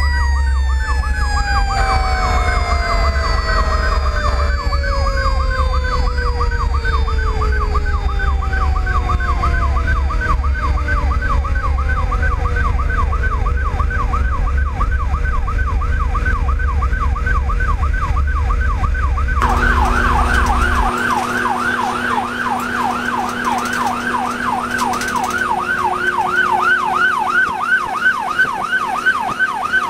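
Fire truck's electronic siren yelping rapidly over low engine and road rumble, heard from the cab. A second siren's wail slides steadily down in pitch over the first dozen seconds, and a steady horn note sounds about two seconds in. About two-thirds of the way through, the sound changes abruptly to a louder yelping siren without the low rumble.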